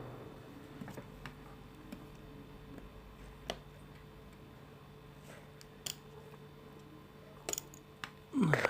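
Small repair tools clicking and tapping on the screws and parts of an opened iPhone 6s, a few light isolated ticks spread out, with a louder short sound that drops in pitch near the end.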